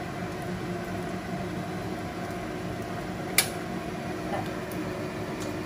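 Steady low background hum with a single sharp click about three and a half seconds in, as the gas stove's burner knob is turned off.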